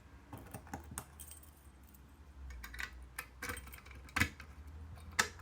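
Light metallic clicks and clinks from a small wafer cabinet lock being handled, irregular, with a louder click about four seconds in and another near the end, over a faint low hum.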